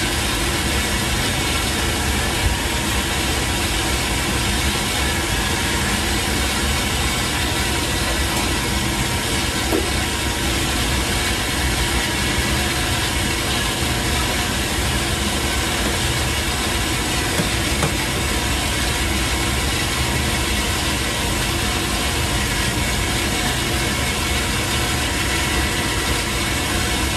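Steady drone of commercial kitchen machinery: a constant, even rush with several steady hums underneath, unchanging throughout.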